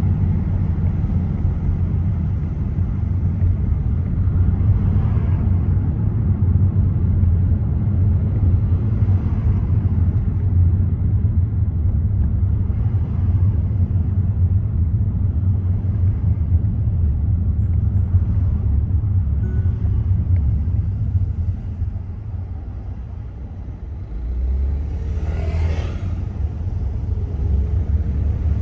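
Steady low road rumble of a car driving on city streets, with a short, louder whoosh near the end.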